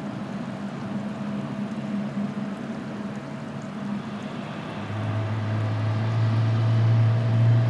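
Jet aircraft engines running, a steady hiss with faint tones, joined about five seconds in by a strong low drone as the sound grows louder.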